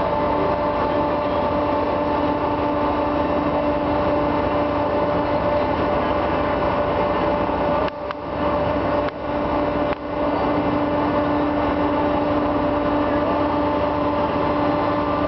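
Steady drone of a car ferry's engines: a constant hum in several tones over an even rush of noise, dipping briefly three times about halfway through.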